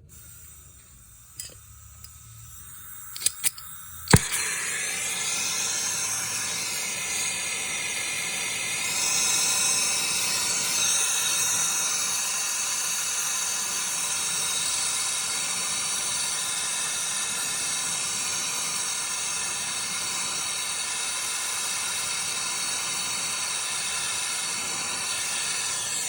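A few clicks and then a sharp snap as a gas torch lights, followed by the torch flame's steady hiss, heating the filter dryer's brazed joint on the fridge line to unsolder it.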